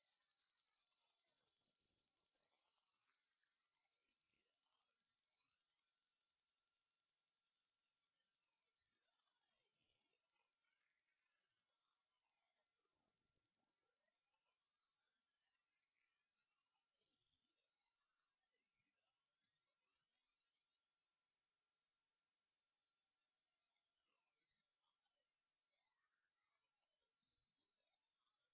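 A single high-pitched pure electronic tone gliding slowly and evenly upward in pitch at a steady loudness: a sine-wave frequency sweep.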